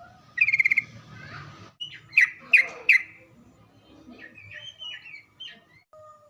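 Yellow-vented bulbul (trucukan) singing: a quick rattling run of notes about half a second in, three loud downward-slurred whistles about two seconds in, then softer chattering warbles.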